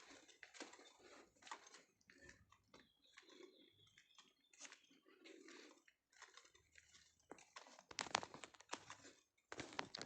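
Faint crunching footsteps at a slow walking pace, each step a short gritty scuff, louder about eight seconds in.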